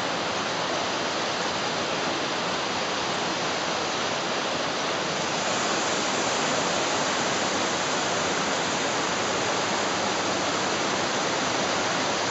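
Mountain waterfall rushing steadily, water cascading down over rock into a stream.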